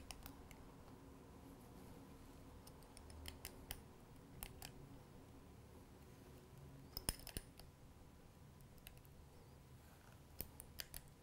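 Faint, scattered metal clicks of a small wrench working the nut of a Schaller strap lock, tightening it onto a thick leather strap. The clicks come in small clusters, the loudest about seven seconds in.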